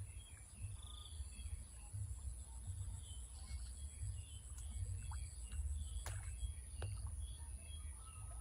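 Outdoor rural ambience: a low wind rumble on the microphone, scattered small bird chirps and a steady high-pitched tone, with a couple of sharp clicks about six and seven seconds in.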